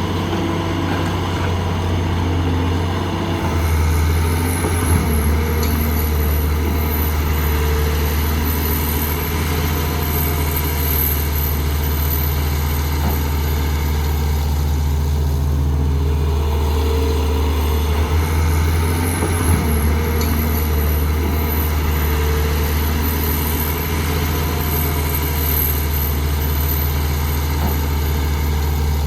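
Heavy diesel engine of construction machinery running steadily at a deep drone, with a high-pitched whine that rises and then holds, once about three seconds in and again just past halfway.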